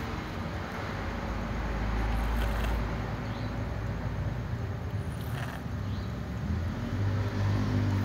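Low rumble of distant road traffic, swelling about two seconds in and again near the end.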